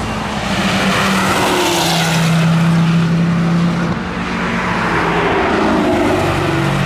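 Cars passing at speed on a wet race track: a steady engine note under the hiss of tyres on wet tarmac, loudest around two seconds in, dipping about four seconds in and then swelling again.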